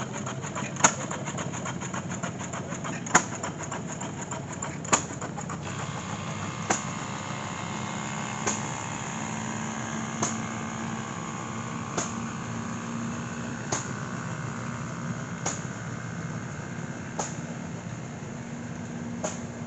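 Antique stationary gas engine running hit-and-miss, firing a sharp pop about every two seconds and coasting between the firings. A quicker, fainter ticking underneath stops about five seconds in, leaving a steady low hum.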